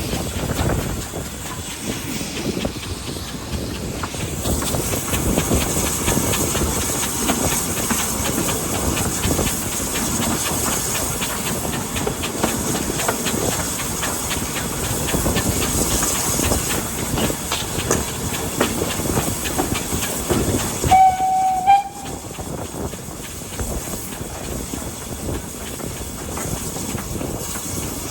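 BR Standard Class 4 4-6-0 steam locomotive No. 75069 working a train, with a fast, steady run of exhaust beats and rail clatter. About three-quarters of the way through it gives one short whistle blast of about a second.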